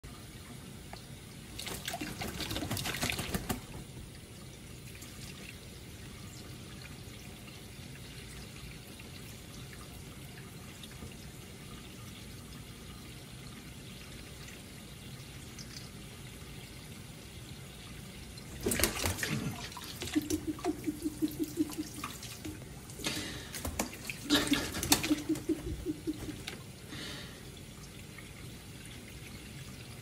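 Kitchen faucet running steadily into a bowl of water in a sink, broken by bursts of splashing as a Timneh grey parrot bathes in the bowl: once about two seconds in and again in a longer spell from about 19 to 26 seconds. A low, rapid pulsing buzz comes twice during the later splashing.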